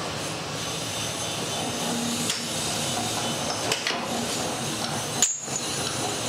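Steel round bars clinking and knocking as they are handled from a stacked pile, a few sharp metallic strikes over a steady background of workshop noise.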